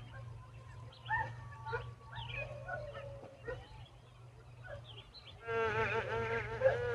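Nestling birds calling: scattered short chirps, then near the end a louder, longer wavering call lasting about a second and a half.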